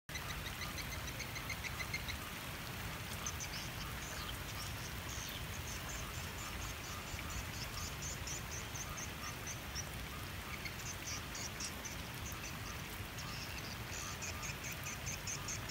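Steady rain, with runs of rapid, high-pitched pulsed animal calls that come and go over the low rush.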